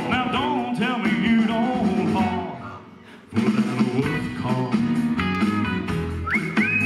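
Man singing into a microphone over amplified instrumental accompaniment. The music drops out for a moment about three seconds in, then comes back.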